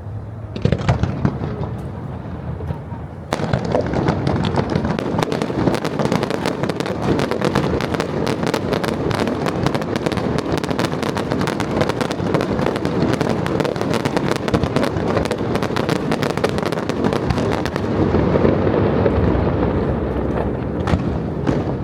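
Fireworks display: a single bang about a second in, then from about three seconds a dense, continuous crackle of rapid pops lasting some fifteen seconds, easing into a lower rumble with a couple of last bangs near the end.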